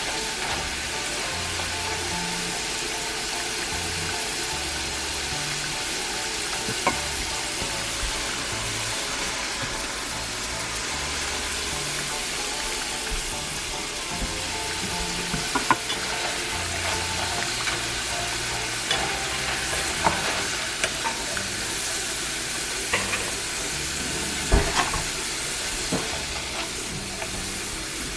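Potato fries frying in hot oil, a steady sizzle, with scattered clinks of a utensil stirring them, more often in the second half.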